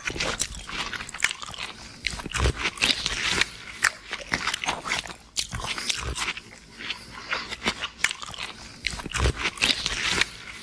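Close, crunchy chewing and biting: a dense, irregular run of crunches and mouth noises, as in a mukbang eating sound effect.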